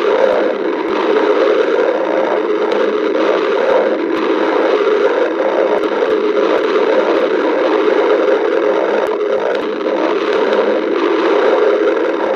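A person's stomach growling and gurgling, steady and unbroken.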